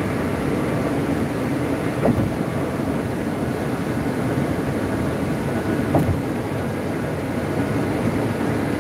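Steady road noise inside a moving minivan at highway speed, the rumble of tyres and engine, with a brief thump about two seconds in and another about six seconds in.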